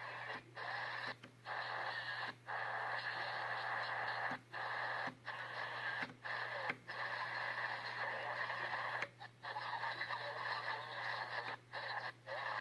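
Shortwave radio tuned to 3700 kHz, receiving an unidentified rasping, noise-like signal that cuts out for a split second about a dozen times at irregular moments. A steady low hum runs underneath.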